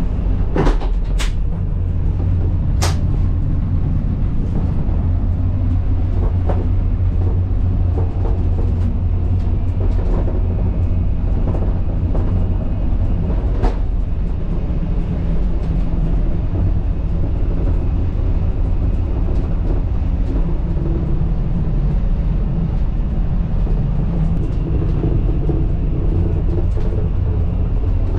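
Steady low rumble of a Tokaido Shinkansen Nozomi train running, heard from inside its toilet compartment. A few sharp clicks come in the first three seconds, and one more about halfway through.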